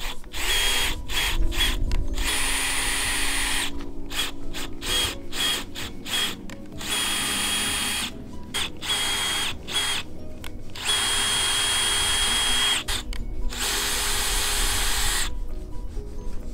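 Cordless drill turning a tap to cut threads in holes drilled in a sailboat mast. Its motor whine starts and stops in many short bursts, with several longer runs of a second or two.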